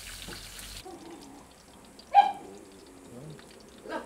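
Chicken deep-frying in a wok of hot oil, an even sizzling hiss that cuts off suddenly about a second in, then a single loud dog bark about two seconds in.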